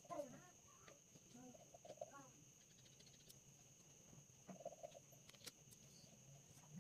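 Near silence with a few faint, short clucking calls from a chicken, over a steady faint high-pitched hum.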